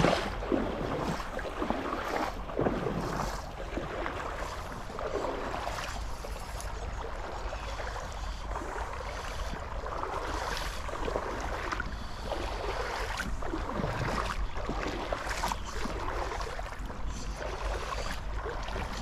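Shallow river water flowing and lapping close by, with irregular small splashes, over a steady low wind rumble on the microphone.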